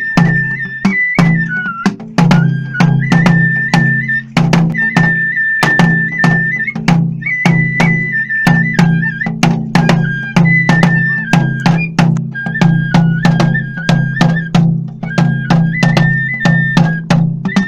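Kagura festival music: a high bamboo flute plays a held melody that steps between notes, over a quick, steady beat of drum strikes, about three a second.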